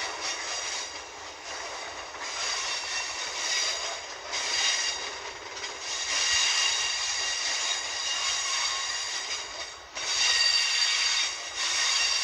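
Freight train of tank wagons rolling slowly round a curve, its wheels squealing on the rails in high-pitched surges that fade and return several times over a steady rumble.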